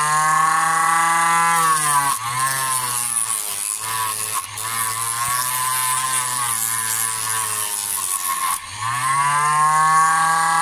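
Homemade disc sander's 775 DC motor running fast with a steady whine, along with a grinding hiss as the jaws of a pair of cutting pliers are sanded on the disc. The pitch drops about two seconds in as the pliers bear down and the motor slows under the load, then climbs back near the end as the load comes off.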